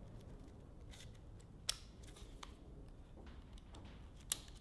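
Faint metallic clicks and ticks as a piston ring is worked on by hand and turned in its groove on a new piston. Two sharper clicks stand out, about a second and a half in and again near the end.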